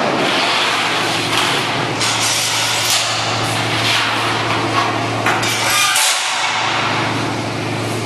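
Sheet steel scraping and clanking as a curved steel water-heater shell is worked by hand in a manual seam-locking machine, with irregular knocks. A steady low hum runs underneath and stops about six seconds in.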